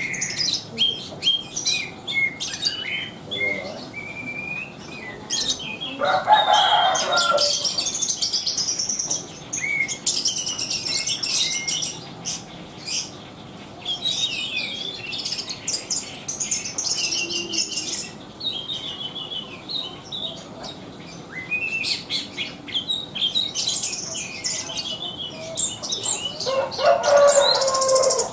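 Anis ground thrush singing continuously in rapid, varied, high-pitched phrases, in full song. There are two louder, fuller outbursts, one about six seconds in and one near the end.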